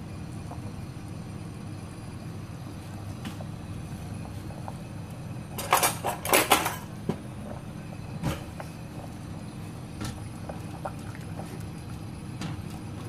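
A stainless steel pot lid clatters against the pot in a quick run of sharp metallic clinks about six seconds in, followed by a single knock and a few light ticks. Under it runs a steady low hum as the soup boils on an induction cooktop.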